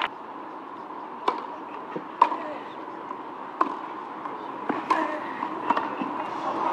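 Tennis balls struck by racquets in a baseline rally on a clay court: about five sharp hits roughly a second apart over a hushed crowd. Crowd noise starts to swell just before the end.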